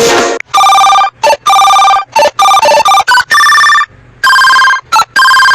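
A sung guitar ringtone cuts off about half a second in. An electronic mobile phone ringtone melody follows: short beeping notes at changing pitches in a quick tune, with brief gaps and one longer pause midway.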